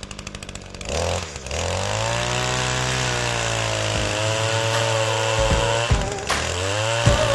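Two-stroke chainsaw idling with a rapid ticking, then revving up about a second in and running steadily at high throttle, with a few brief dips in speed.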